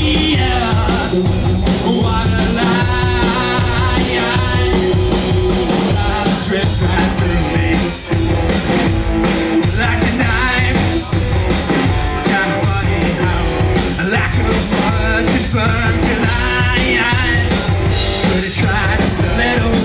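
Live rock band playing: electric guitars over a drum kit, heard from the audience floor.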